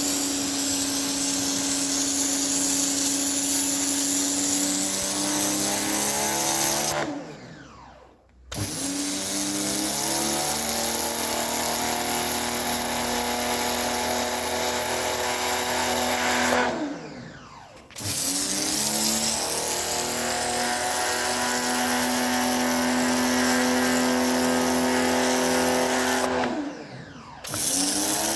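Bosch electric pressure washer running steadily with a high hiss. Three times its motor winds down in pitch and stops, then starts up again abruptly about a second later.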